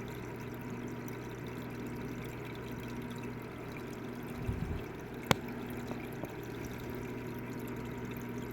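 Aquarium filter outflow pouring steadily into the tank water like a small waterfall, with a steady low hum underneath. A few soft low bumps come just before a single sharp click about five seconds in.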